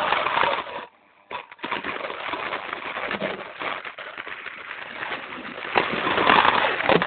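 Continuous rattling, scraping run along a plastic slot-car track as the camera travels down it. There is a short break about a second in, and it grows loudest near the end.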